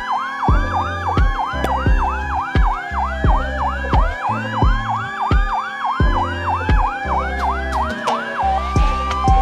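Fire truck electronic sirens: a fast yelp cycling about four times a second over a slower rising-and-falling wail, with background music with a steady beat underneath. Near the end the yelp gives way to alternating steady tones.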